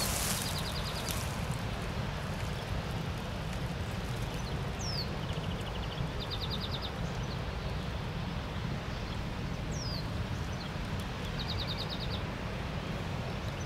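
Small songbirds singing in spring woodland: short falling whistles and fast trills of high notes, repeated every few seconds, over a steady low rumble.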